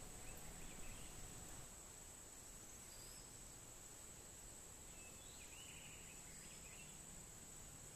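Faint, steady high-pitched drone of insects.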